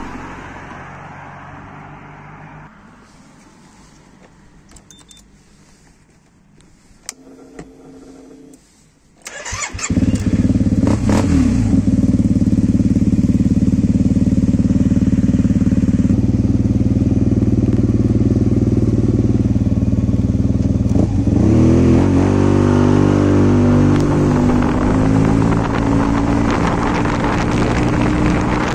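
Yamaha TMAX 530 scooter's parallel-twin engine, fitted with a new aftermarket exhaust, starting about nine seconds in after a few quiet seconds with a couple of clicks. It then idles steadily. About 21 seconds in the scooter pulls away, the engine rising in pitch as it accelerates, with wind on the microphone.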